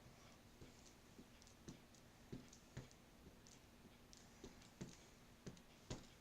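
Faint, irregular light clicks and taps, roughly two a second, from stamping supplies being handled: stamps being inked and stamped.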